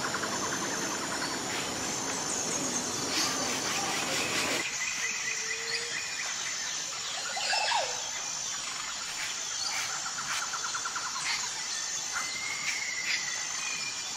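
Several birds calling, with short whistled notes and a couple of rapid trills, over a steady high insect buzz. A background hiss drops away abruptly about four and a half seconds in.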